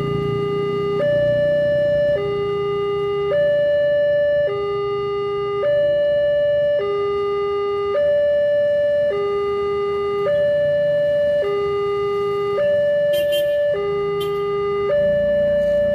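Railway level-crossing warning alarm sounding a steady two-tone signal, alternating high and low about every second, the warning that a train or rail vehicle is approaching.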